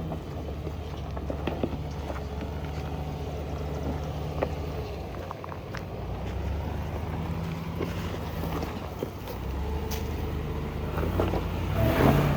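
Off-road SUV engine running steadily at low revs while crawling over rocks, with scattered sharp clicks and a louder burst of noise near the end.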